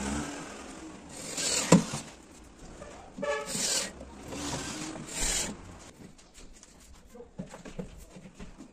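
Cordless Metabo drill-driver driving screws through an aluminium sliding-door track into a wardrobe base: three short bursts of the drill about a second apart, the first ending in a sharp click, then a few light knocks near the end.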